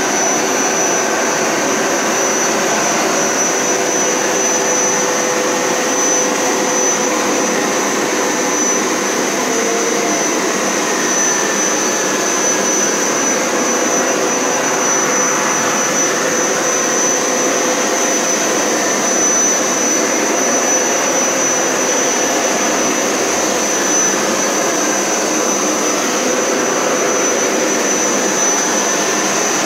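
Hoover Power Scrub Elite upright carpet cleaner running steadily on its wash setting, its motor giving a continuous loud run with a steady high whine over it.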